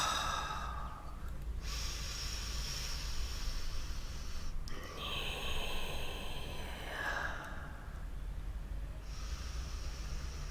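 A person breathing slowly and deeply close to the microphone, as in guided meditation breathing: three long, airy breaths of a few seconds each, with short pauses between them.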